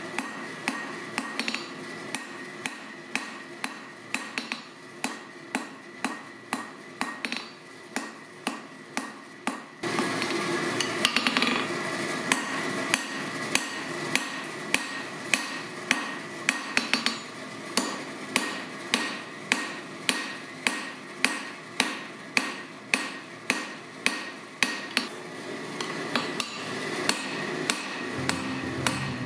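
Ball-peen hammer striking a red-hot steel bar on an anvil, in steady forging blows about two a second, each a sharp metallic clang with a short ring, over a steady hum.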